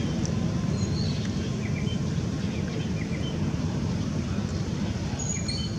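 Steady low rumbling background noise, with a few faint short high chirps scattered through it.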